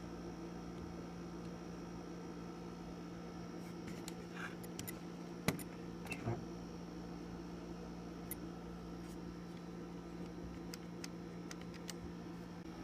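Steady low hum with a few scattered light clicks and taps from handling small mechanism parts, the sharpest click about halfway through.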